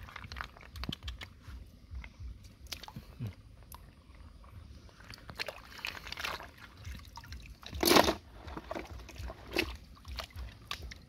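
Shallow stream water splashing and sloshing as bare hands scoop up handfuls of freshwater snails, with water trickling off the cupped hands and scattered short clicks. A louder splash about eight seconds in.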